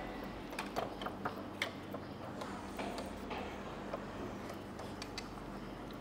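Chopsticks clicking and tapping against small bowls as several people stir sauce and eat, in scattered, irregular strokes over a low steady hum.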